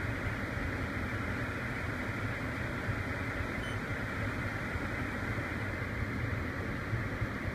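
Dodge Grand Caravan's HVAC blower fan running steadily, heard inside the cabin, over the low hum of the idling engine.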